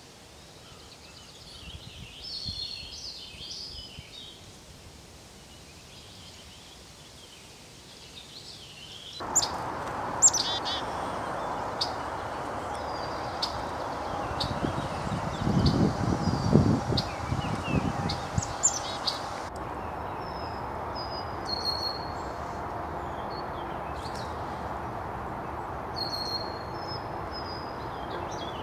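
Wild songbirds singing and calling. About nine seconds in there is an abrupt change to a steady rushing noise that the birdsong carries on over, with a few seconds of low rumbling midway.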